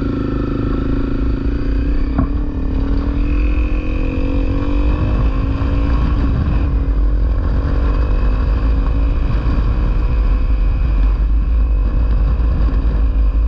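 Honda CRF250L single-cylinder engine pulling away and riding on, its note climbing slowly as the bike gathers speed, under a heavy low wind rumble on the microphone. A single sharp click comes about two seconds in.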